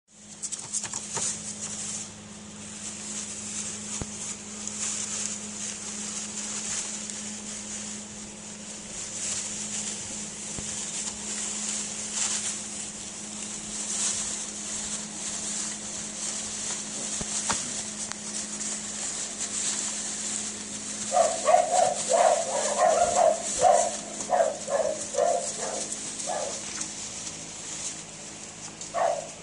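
Bedlington terrier puppies yapping: a quick string of short, high yelps for about six seconds past the middle, and one more near the end, over a steady low hum and hiss.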